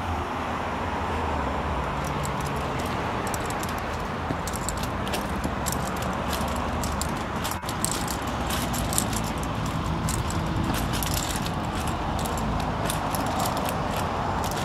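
Outdoor road-traffic ambience: a steady low vehicle rumble with many small clicks and scuffs over it, and a brief dropout about halfway through.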